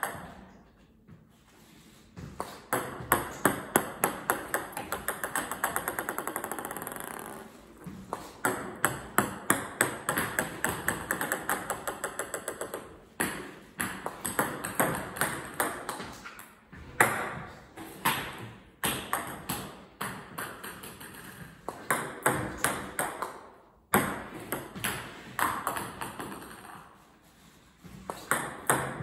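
A plastic table tennis ball bounced rapidly on a racket: several runs of quick pings separated by short pauses, the bounces often crowding closer together toward the end of a run.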